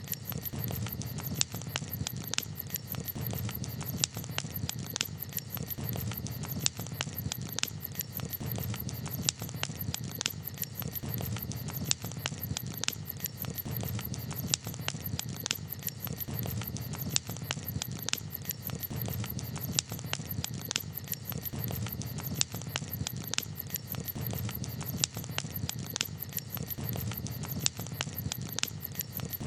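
Campfire crackling steadily: a low, even rumble of burning wood with many small sharp snaps and an occasional louder pop.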